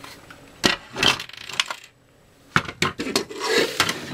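Hard plastic parts of a disassembled Nerf Tommy 20 blaster clacking and knocking against each other and a wooden tabletop as they are handled and set down: a string of sharp clicks, briefly pausing about two seconds in, then a busier run of clatter.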